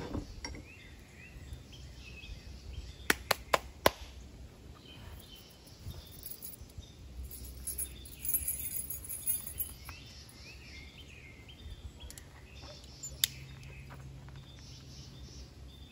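A few sharp metallic clicks as a keychain ferro rod is handled, four close together about three seconds in and one more near the end, over birds chirping steadily in the background.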